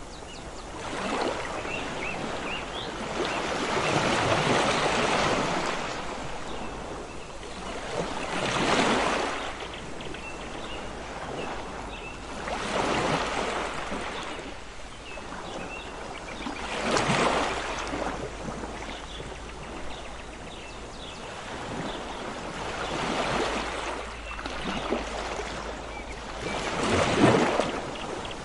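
Sea waves breaking and washing up on a beach, a swell of surf every four seconds or so, the loudest one near the end.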